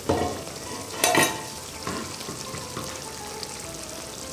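Thick rui fish kalia gravy sizzling and bubbling in a kadai on a gas flame, its water nearly cooked off. A sharp knock right at the start and a louder metallic clatter about a second in, with a few lighter taps after.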